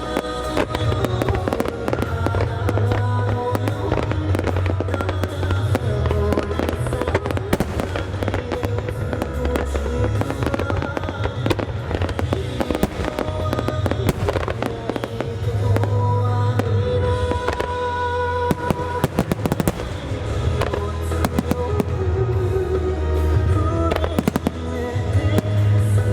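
Aerial fireworks shells bursting and crackling in rapid, dense succession, over loud recorded music played for a fireworks show synchronised to music.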